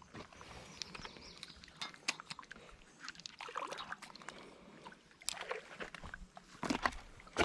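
Lake water sloshing and splashing at a rocky shore, with scattered short knocks and scrapes of movement on the rocks, the loudest near the end.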